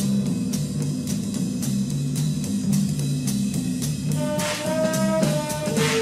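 Instrumental film-score music: a repeating low bass figure under regular drum strikes, with held melody notes coming in about four seconds in.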